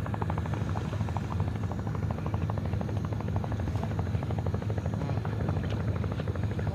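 A boat engine running steadily: a low drone with a fast, even clatter.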